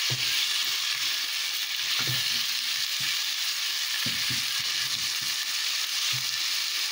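Diced onion and tomato sizzling steadily in hot oil in a pot, being sautéed until the tomato gives up its juice. A spatula scrapes and stirs through them every second or so.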